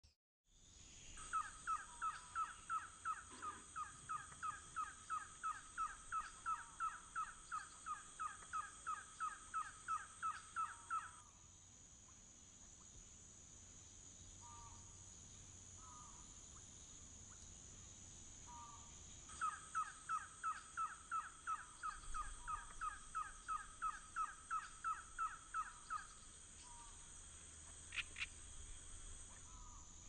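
Trogon song: a long, even series of identical short notes, about three a second, kept up for about ten seconds. After a pause with a few softer short calls, a second series runs for about six seconds.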